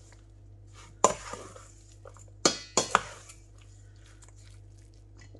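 A spoon clinking and knocking against a mixing bowl while stirring diced chicken in its spice mix: one sharp clink about a second in, then three more in quick succession around two and a half to three seconds in.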